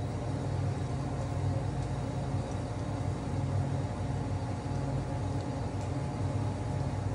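A steady low machine hum from a running motor, made of several unchanging tones over a light hiss.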